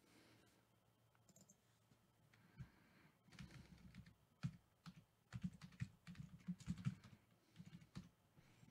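Faint typing and clicks on a computer keyboard: irregular taps starting about two and a half seconds in.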